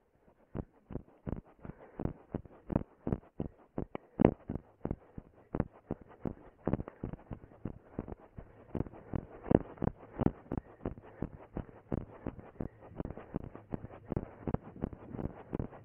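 A runner's footsteps thudding steadily on grass and scrub, about three strides a second, picked up by a camera worn on the body.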